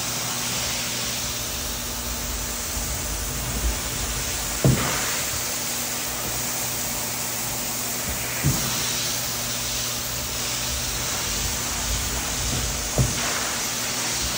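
Rug-washing equipment running: a steady rushing hiss over a low motor hum, broken by a few short knocks.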